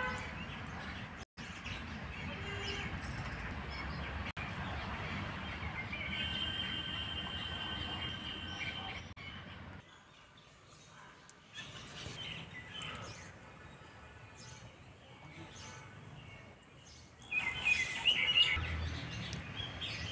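Birds chirping and calling over a steady outdoor background hiss, with a run of held calls midway and louder, quick chirping near the end.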